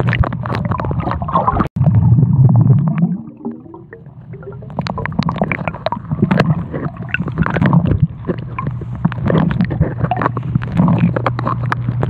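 Muffled underwater sound of a camera submerged in a swimming pool: gurgling and crackling bubbles as a swimmer breathes out slowly through his nose, over a steady low hum. It drops away briefly about two seconds in and is quieter for a second or so around four seconds in.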